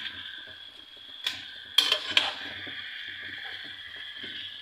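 A plastic slotted spatula knocks against the pan three times as chicken pieces are turned, over a steady hiss of the chicken cooking in its own marinade without added water.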